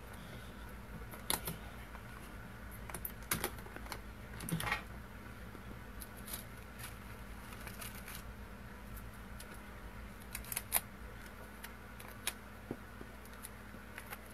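Tracing paper and graphite paper being taped down onto watercolor paper: scattered light clicks and rustles of paper and tape, a few louder ones in the first five seconds and again about ten seconds in, over a faint steady low hum.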